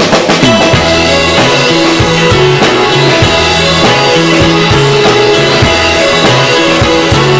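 Instrumental rock music: a band with a drum kit playing a steady beat under sustained bass and guitar notes.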